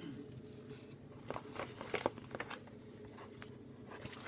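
A few faint, short clicks and taps of small objects being handled, clustered about a second in, over a low steady background hum.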